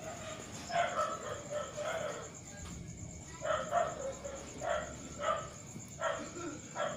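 Rooster crowing: a longer crow about a second in, followed by several shorter calls. A faint steady high-pitched whine runs underneath.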